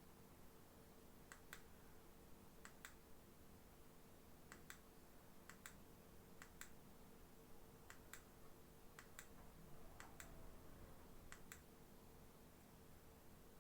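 Faint clicks from the ring light's small remote control as its middle button is pressed and released repeatedly, each press giving a quick double click, about nine presses, which switch the light's colour and brightness.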